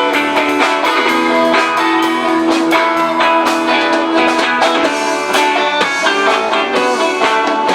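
Band playing an instrumental passage without vocals, led by guitar over a steady beat.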